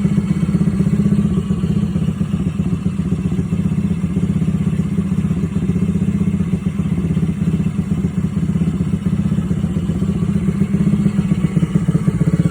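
Small petrol engine idling very rough, a steady rapid pulsing. The owner takes its black, sooted spark plug as a sign that it is burning oil.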